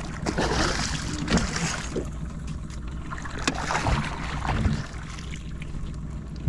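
Water splashing as a hooked lukanani (peacock bass) thrashes at the surface beside the boat, busiest in the first couple of seconds, then a few knocks as it is netted. A boat motor's steady low hum runs underneath.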